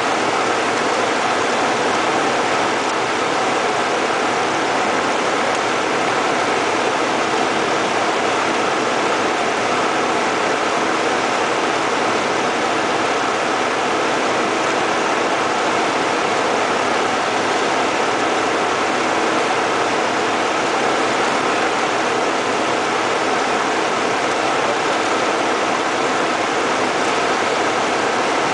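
Single-engine light aircraft's piston engine and propeller with rushing airflow, heard from inside the cockpit: a steady, unchanging drone with a constant hum. The engine is throttled back for a power-off practice approach.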